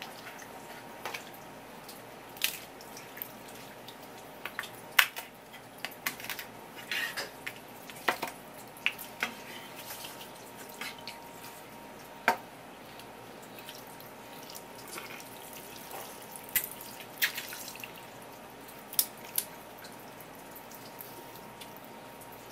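Kitchen tap running steadily onto a wooden cutting board, with irregular wet slaps, splats and drips as a raw spear squid is handled and skinned under the stream.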